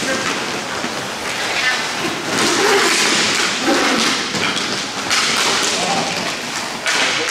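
Hockey play on a rink: a continuous wash of skate and stick noise, with players' voices calling out over it and a few knocks.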